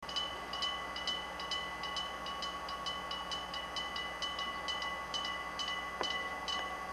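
Old-type electric train of the Hokuriku Railway Ishikawa Line running along the line, heard as a steady hum with a regular clicking about twice a second.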